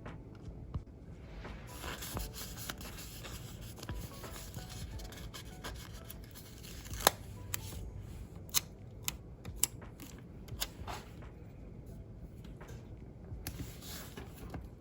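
Paper stickers being handled on a planner page: rubbing and scratchy peeling sounds with several sharp clicks and snaps through the middle, the loudest about seven seconds in.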